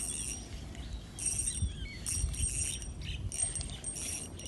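Daiwa Revros 1003 ultralight spinning reel buzzing in short, high-pitched bursts about once a second while a hooked snakehead is played on light line.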